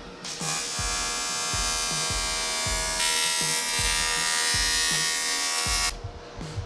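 AC TIG welding arc on aluminium: a steady electric buzz that starts about half a second in and cuts off suddenly about a second before the end, as the torch is switched off.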